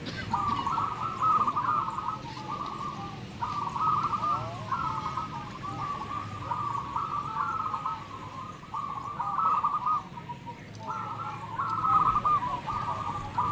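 Many zebra doves (perkutut) cooing at once, their trilled coos overlapping almost without a break. A low background hum lies beneath them.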